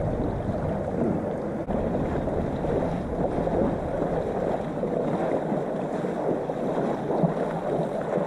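Shallow lake water splashing and sloshing as a horse and a man wade through it, mixed with wind noise on the microphone.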